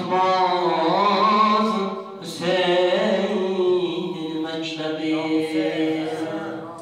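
A man chanting an unaccompanied devotional madh song into a microphone, in long held, wavering phrases with a short break about two seconds in.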